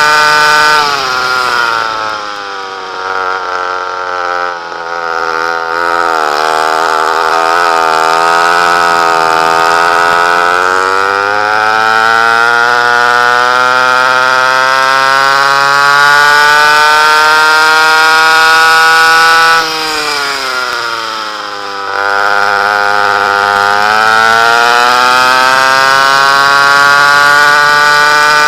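Vintage two-stroke kart engine heard onboard under racing load. Its pitch drops twice, about a second in and again near twenty seconds in, and each time it climbs steadily back up as the revs build on the straight.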